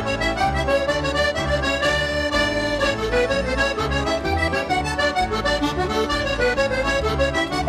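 Accordion music: a traditional tune with a melody over a steady, regular bass accompaniment.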